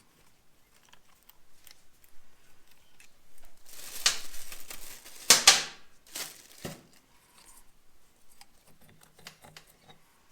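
Hand tools and metal clutch parts clicking and clattering during clutch removal on a motorcycle engine, with a cluster of louder clatters and knocks about four to seven seconds in.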